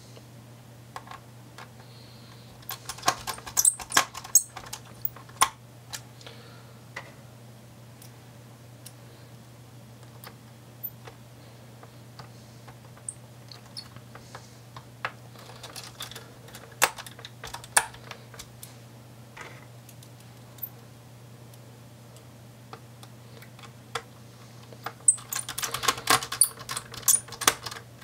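Small screws being driven into a laptop's hard drive caddy with a precision Phillips screwdriver: scattered light clicks and ticks in clusters about three seconds in, around sixteen to eighteen seconds, and a busier run near the end, over a low steady hum.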